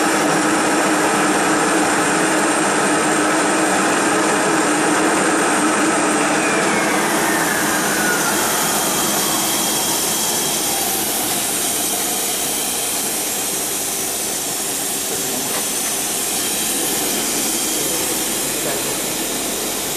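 Steady running noise of a CNC router's vacuum hold-down pump. Partway through, a whine falls in pitch over several seconds as the spindle spins down.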